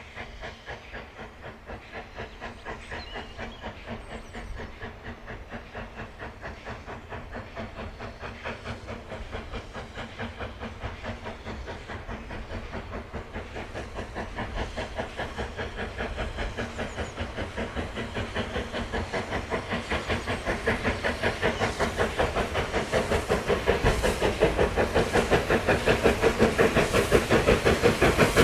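Steam locomotive working hard, its exhaust chuffing in a fast, even rhythm and growing steadily louder as it comes closer.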